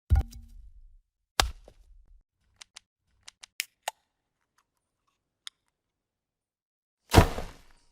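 Video transition sound effects played one after another: a sharp hit with a low rumbling tail, another hit about a second and a half in, a quick run of clicks around three seconds in, and near the end the loudest, a noisy hit that fades out.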